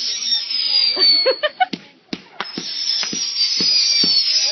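Consumer fireworks going off: a hissing rush with a high whistle that slowly falls in pitch, peppered with sharp crackles and pops. It dies away about two seconds in, then a second hiss and whistle starts with more scattered pops.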